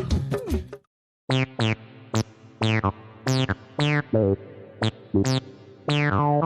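A short electronic synthesizer tune of plucky notes, each starting with a quick falling zap, played as a bouncy melody. It starts after a brief gap that follows a busier sound cut off near the one-second mark.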